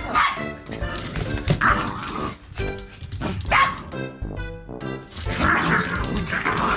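Two small dogs, a Mame-shiba–toy poodle cross and a Pomeranian–Maltese cross, barking in short bursts as they fight in earnest, over background music.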